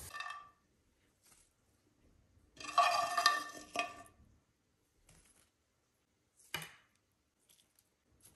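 A metal utensil clinking and scraping against a frying pan and plate as fried pork pieces are moved onto the plate. The loudest run of clinks comes about three seconds in, followed by a single sharp click later on.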